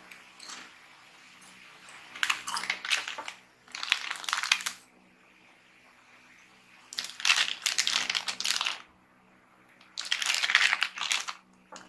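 A plastic chip bag of Chik'n Skin ni Mang Juan crackling chips crinkling as it is gripped and turned over in the hands, in four bursts of a second or two each and a short one near the end.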